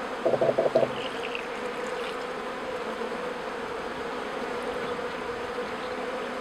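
A cluster of package honeybees buzzing steadily inside a top-bar hive, with a short louder pulsing buzz about half a second in.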